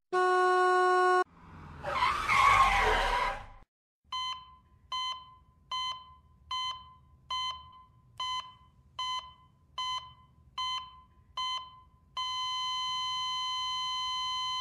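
A car horn blast, then tyres screeching. After a pause, a hospital heart monitor beeps ten times at a steady pace, a little over once a second, then goes to one continuous flatline tone: the sign of the victim's heart stopping.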